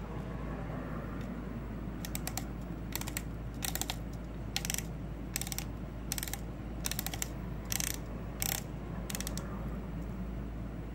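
Shimano baitcasting reel's spool clicker ratcheting in about ten short bursts of rapid clicks, one burst every second or less, as the spool is turned under the thumb.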